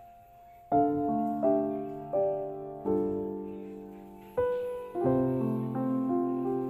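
Background piano music: a slow, gentle piece of single notes and chords, each struck and left to fade.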